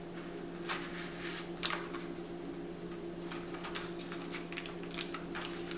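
A few soft rustles and light taps of a folded cardstock cover being handled as a pack of gum is slid inside it, over a steady low hum.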